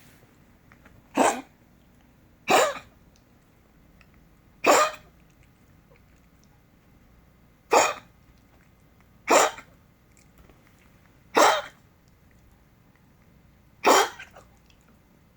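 A dog coughing seven times, each cough short and sudden, with gaps of about one and a half to three seconds between them.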